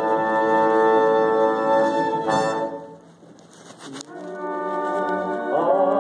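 Orchestral music led by brass: a chord is held for about two seconds and then fades. New chords come back in a second or so later and grow fuller near the end.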